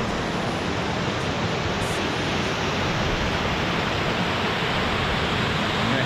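Creek water rushing steadily over rock cascades at the head of a waterfall.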